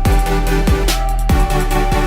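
Electronic dance background music with a heavy beat and deep falling bass hits.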